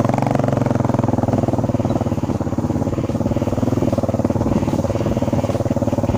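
Motorcycle engine running steadily while the bike is ridden, with an even, rapid firing pulse.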